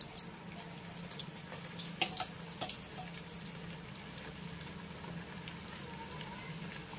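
Cornflour-coated soya chunks going into hot oil in a kadai, sizzling as soon as they hit it, with several sharp crackles in the first three seconds.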